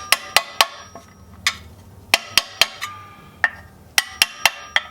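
Hammer tapping a new bearing race into a transfer case's rear bearing housing, about a dozen sharp metallic taps in quick clusters of two to four, each ringing briefly, seating the race.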